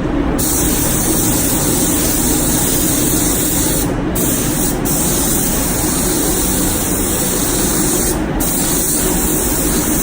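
Air spray gun hissing as it sprays primer, cutting off briefly as the trigger is released about four seconds in and again near eight seconds, with a steady low hum underneath.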